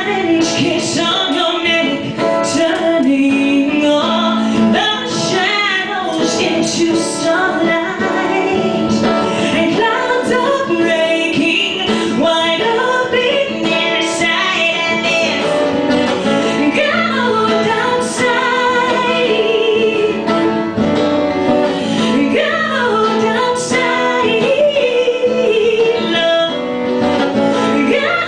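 A woman singing a song while strumming an acoustic guitar, performed live.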